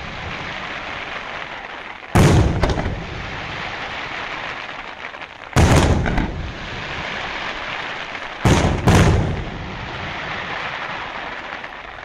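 Daytime aerial firework shells bursting overhead, loud booms about two seconds in, again at five and a half, and a quick double near eight and a half seconds, with a steady din filling the gaps between the bursts.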